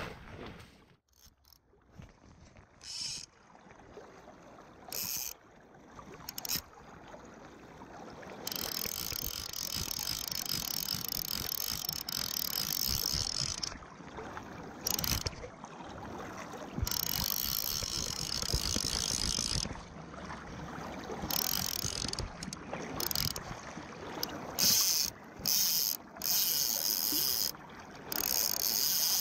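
Fly reel's ratchet drag buzzing in runs of a few seconds, starting and stopping suddenly several times.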